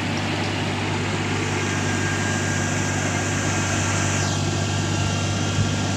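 Kubota DC-35 combine harvester's diesel engine running steadily with a low drone. About four seconds in, a higher hiss above it slides down in pitch.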